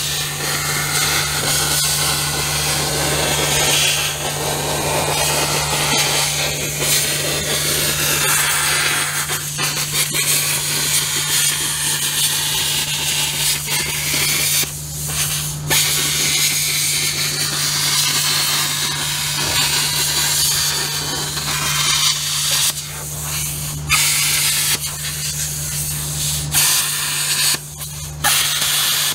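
Handheld plasma cutter cutting 14-gauge sheet steel: a loud, steady hiss of the cutting arc and air. The hiss breaks off briefly several times as the cut pauses, mostly in the second half, over a steady low hum.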